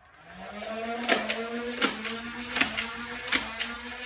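Nerf Ultra Two blaster's battery-driven flywheel motors spinning up with a rising whine, then holding a steady hum. Darts fire semi-automatically over the hum, four sharp clicks about three quarters of a second apart.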